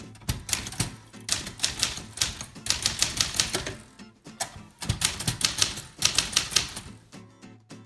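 Typewriter keys striking in quick, irregular runs of sharp clicks, pausing briefly about four seconds in.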